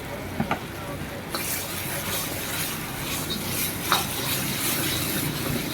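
Food sizzling in a hot pan while a metal spatula stirs and scrapes it, with a few sharp clinks of metal on metal. The sizzle starts about a second in.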